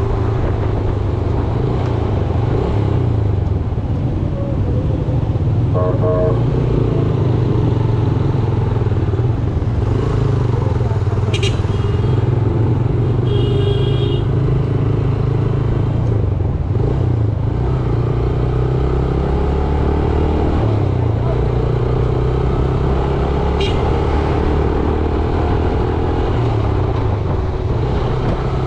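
Yamaha YBR 125G's single-cylinder four-stroke engine running steadily under way, its pitch shifting as the throttle changes, amid traffic noise. Vehicle horns sound briefly a few times.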